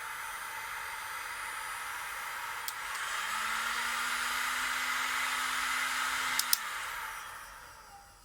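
Bosch GHG 20-60 heat gun running, its fan blowing a steady rush of air. After a click about three seconds in it runs louder, with a low steady hum added. After a double click near the end it winds down and fades out.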